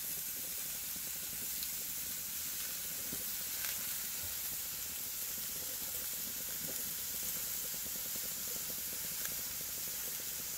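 Buffalo steak sizzling on a grill grate over a live fire: a steady hiss with a few faint pops.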